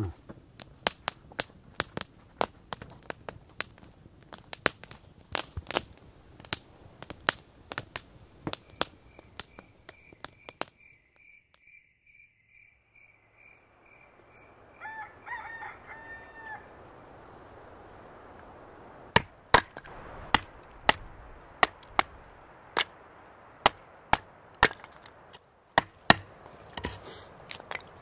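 Wood fire crackling with sharp irregular pops in a folding steel twig stove under a cast iron cooker. Then a rooster crowing once, briefly. Then a knife splitting cedar kindling: loud sharp cracks about once a second.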